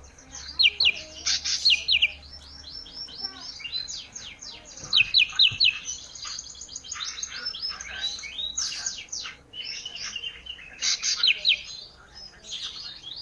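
A ranting bird (Sunda bush warbler) singing energetically: fast runs of short, sharply falling high notes, broken by louder clusters of three or four descending whistles about half a second in, around five seconds, and near eleven seconds.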